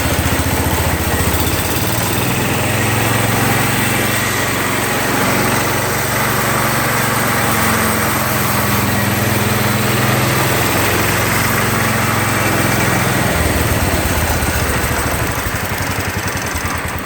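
The John Deere 120's 12 hp Kohler single-cylinder engine running steadily: it speeds up a second or two in, holds there, then drops back to a lower speed near the end. Freshly rebuilt with new piston rings, it runs smoothly, "like a sewing machine."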